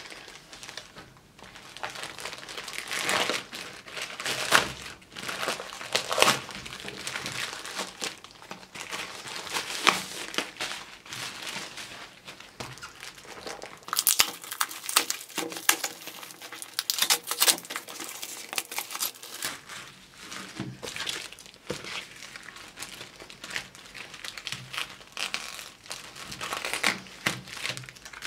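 A parcel being unwrapped by hand: packing tape ripped off a cardboard mailer, with irregular crinkling and rustling of cardboard and plastic packaging. A run of sharper rips comes about halfway through.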